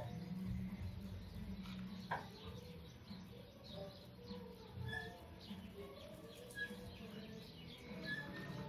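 Small birds chirping in the background, short calls every second or so, with two sharp clinks of a spoon against the aluminium pan as spice powder is tipped onto the chicken.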